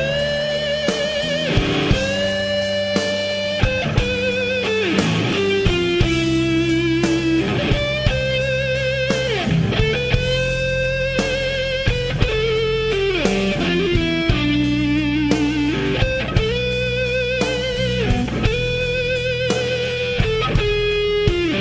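Background rock music: an electric guitar plays a lead solo of long held notes with vibrato and bends, over bass guitar and drums.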